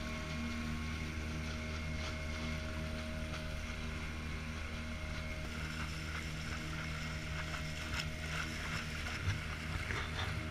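Small boat's motor running steadily under way, with water rushing along the hull and some wind on the microphone.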